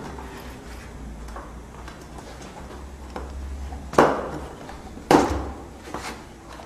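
A bicycle tyre being worked by hand onto a tubeless Mavic rim: faint rubbing and small clicks, then two loud, sharp snaps of the tyre against the rim about a second apart, past the middle.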